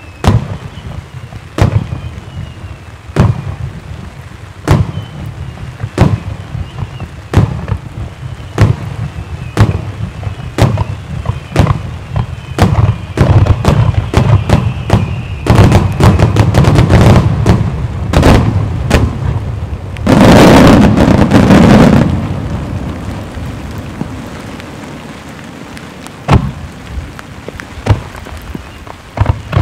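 Starmine fireworks display: aerial shells bursting with sharp booms, at first about every second and a half, then thickening into a rapid barrage. About twenty seconds in comes a loud, dense two-second blast of many bursts together, followed by a few scattered booms.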